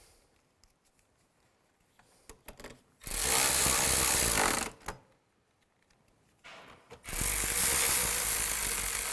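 Cordless power driver running in two bursts, a shorter one about three seconds in and a longer one from about seven seconds, tightening the door panel screws, with a few small clicks in between.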